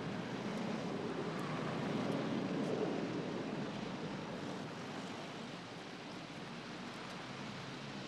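A car driving past, its engine and tyre noise swelling about two to three seconds in and then fading away.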